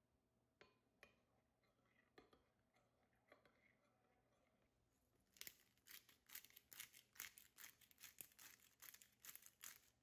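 A metal spoon clinking and scraping now and then against a ceramic bowl while stirring a thin tomato sauce. About five seconds in, a black-pepper grinder is twisted over the bowl: a quick run of crackling grinding clicks.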